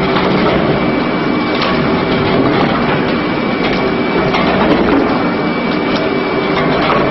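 Industrial twin-shaft shredder running, its toothed cutter rotors grinding and crushing meat in a dense, continuous mechanical din. A steady high whine runs under it, and sharp cracks come scattered throughout.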